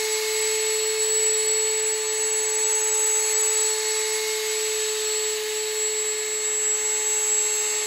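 Bauer 20V cordless drill spinning a cone-shaped chamfering tool in the top edge of an engine cylinder bore, deburring it. The motor runs at one steady pitch over a hiss.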